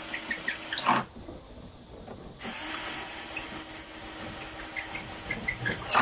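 Cordless drill/driver running to drive screws into the cover panel of a speaker cabinet. It stops about a second in and starts again after a short pause.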